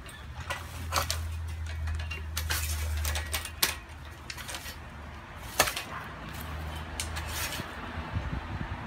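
Pole pruner cutting in an olive tree's canopy: irregular sharp clicks and snaps of the cutter and twigs, with leaves rustling. A low steady rumble sits underneath in the first few seconds.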